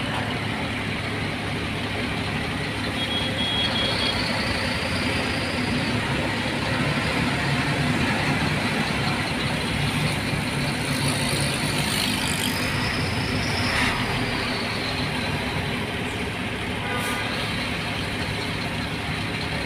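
Truck engine running steadily, heard from inside the cab, with an even wash of road and water noise as it creeps through flooded traffic.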